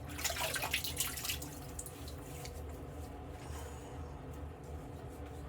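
Wet-shaving sounds at a sink: a burst of scratchy, splashy noise in the first second and a half, then a fainter steady hiss.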